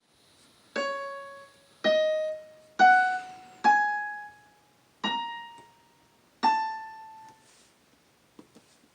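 Casio LK-222 electronic keyboard on its grand piano voice, playing six single notes one at a time. Each note is struck and then dies away. The melody climbs over the first four notes and stays high, and a few faint clicks come near the end.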